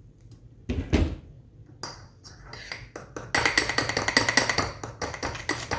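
A dull thump, then scattered clicks building into about two seconds of rapid clinking with a bright ring, like crockery or cutlery knocking together.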